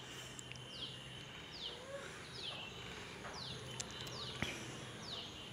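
A bird repeats a short, high whistled note that falls in pitch, about once a second, over faint outdoor background noise. A single sharp click sounds about four and a half seconds in.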